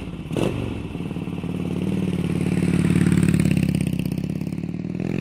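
Motorcycle engine running with a steady pulsing note, with a sharp knock about half a second in; it grows louder to a peak around three seconds in, then eases slightly.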